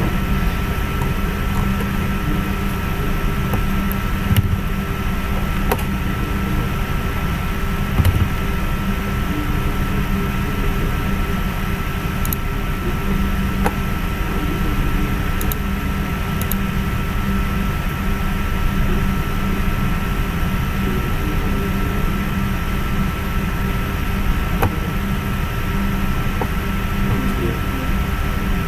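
Steady low hum and hiss of background equipment noise, with a thin steady whine above it, broken by a few faint clicks.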